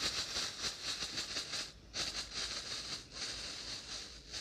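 Two small 'disco' ground firecrackers burning with a steady fizzing hiss and fast crackle. The hiss drops out briefly twice and fades near the end as they burn down.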